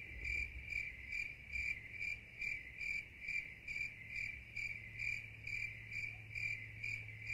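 Insect chirping in a steady rhythm, about two and a half chirps a second, over a low steady hum.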